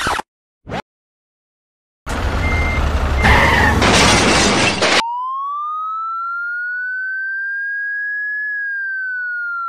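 A loud clattering, scraping crash as a plastic toy dump truck tumbles over on the dirt. Then a siren sound effect comes in: one clean wailing tone that rises slowly for about three seconds and then starts to fall.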